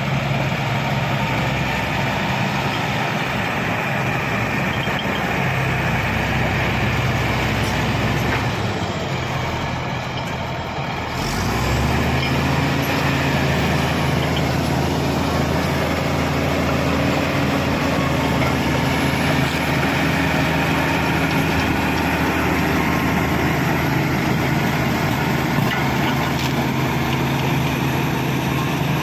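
Shantui SD16 bulldozer's diesel engine running steadily. About eleven seconds in, its note shifts and it gets louder.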